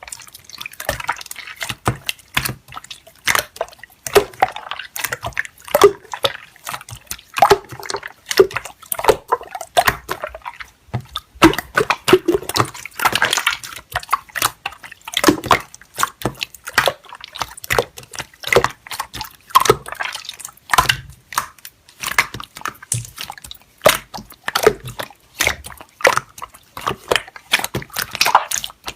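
Slime being squished and worked by hand, making a fast, irregular run of wet, sticky popping and clicking sounds.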